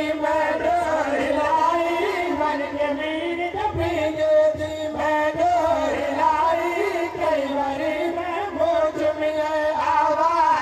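A man chanting a Punjabi Muharram lament (noha) in long, wavering, drawn-out sung notes.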